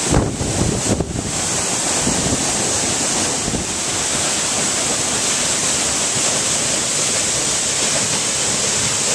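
Kaeng Nyui waterfall thundering: a loud, steady rush of falling water heard close to its base, with wind buffeting the microphone in the first second or so.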